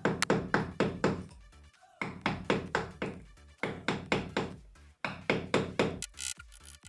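Background music with a steady, knocking percussive beat.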